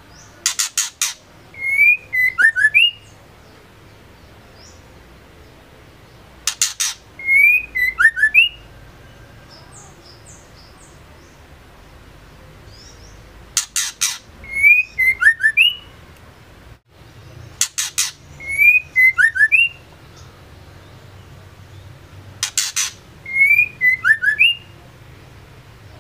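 Female white-rumped shama calling: a quick run of three or four sharp clicking notes followed by a short phrase of high whistled notes. The phrase repeats five times, every four to seven seconds.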